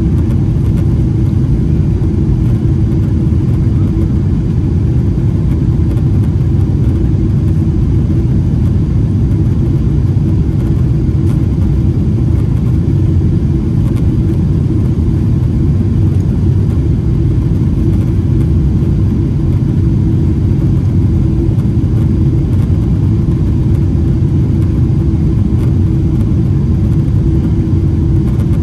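Steady loud rumble of a Boeing 777-300ER heard from inside the cabin: the GE90 engines and the airflow around the fuselage, even throughout with a faint steady hum.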